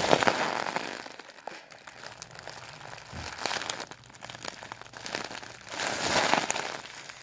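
Foil (Mylar) balloon crinkling as it is squeezed in the hands while helium is sucked out of it by mouth, in a few noisy bursts.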